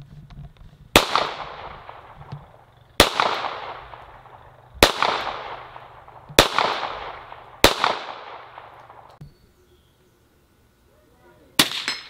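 Five handgun shots, each a sharp crack with a long echo rolling away, fired about one and a half to two seconds apart. After a pause of a few seconds, one more gunshot comes near the end.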